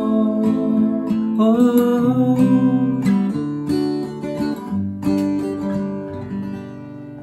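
Acoustic guitar music with a held, gliding melody line, gradually fading down over the last few seconds.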